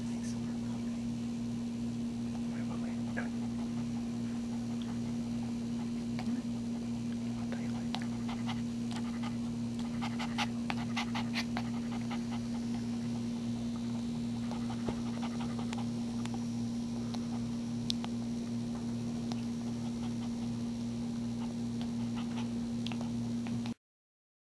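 A steady low electrical hum, with clusters of small wet clicks from a newborn Maltese puppy suckling at its mother, thickest around the middle. The sound cuts off just before the end.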